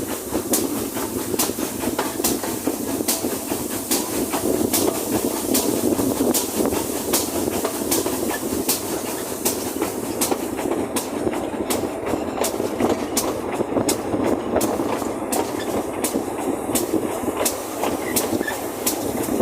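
GWR 4144, a Large Prairie 2-6-2 tank steam locomotive, running along the line with a steady, regular beat of about two to three strokes a second.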